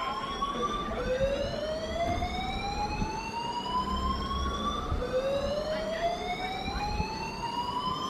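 Fire alarm sounding a slow-whoop evacuation tone: the pitch rises steadily for about four seconds, drops back and rises again, repeating, over a low background rumble.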